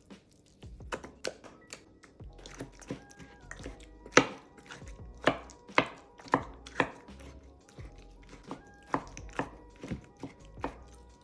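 Kitchen knife chopping on a cutting board: irregular sharp knocks, mostly one to two a second, the loudest about four seconds in. Soft background music plays underneath.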